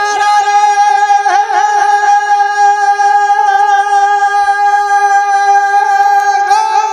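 A naat reciter's voice holding one long, high sung note, with a short vocal ornament about a second in and a small lift in pitch near the end.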